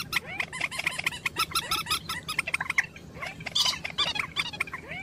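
Bird calls played from a loudspeaker as a trapping lure: many overlapping short squealing notes, each rising and falling, repeated without pause, with crackly clicks throughout.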